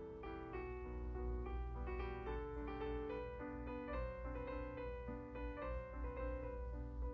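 Background piano music: a melody of single notes played at an even pace.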